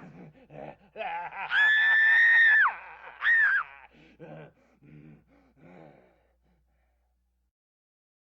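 Horror-film sound effect of a person screaming: one long, high-pitched scream, then a short scream right after it. A few short, broken vocal sounds follow and fade away.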